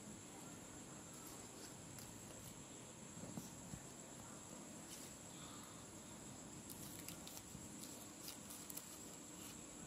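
Faint, steady high-pitched drone over low room noise, with a few soft taps and crinkles of paper being handled, most of them in the last few seconds.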